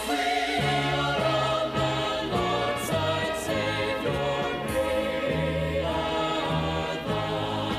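Gospel choir singing a hymn over instrumental backing, with a bass line stepping from note to note.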